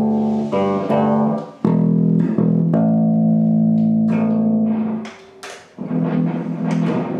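1982 Ibanez Roadster electric bass played through an amplifier: low single notes plucked and left to ring, re-struck several times, dying away briefly about five seconds in. There is some scratchiness in the signal, the sign of a dirty potentiometer and poor wiring in the bass's electronics.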